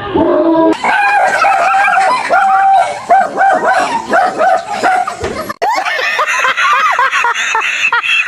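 A dog barking and yipping in a rapid run of short, high-pitched calls, about three a second, with an abrupt change in the sound about five and a half seconds in.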